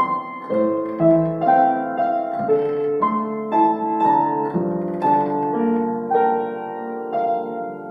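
Yamaha U1E upright piano being played: a soft melody over flowing broken chords, several notes a second, each ringing on into the next.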